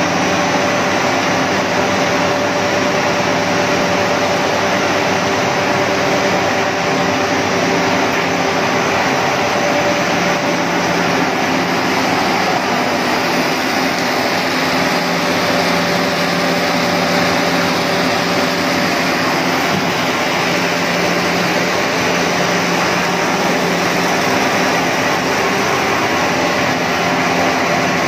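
Snack-food extrusion production line machinery running: a steady, loud mix of electric motor and blower noise with a few constant hums.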